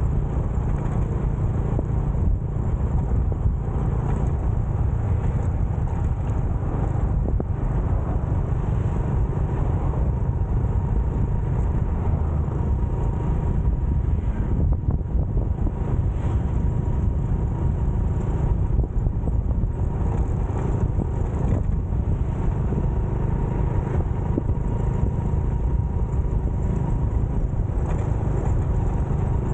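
Motorcycle riding along at a steady pace: engine and road noise under a constant low rumble, with no change in speed.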